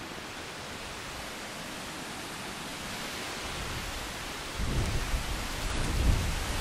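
Wind buffeting the microphone: a steady rushing hiss that slowly builds, then from about four and a half seconds in, irregular gusts of low rumbling.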